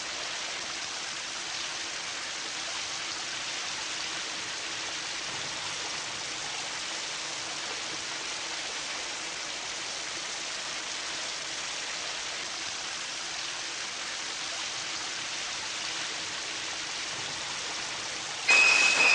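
Shower head spraying water in a steady hiss. Near the end a sudden, loud, high-pitched shrieking cuts in.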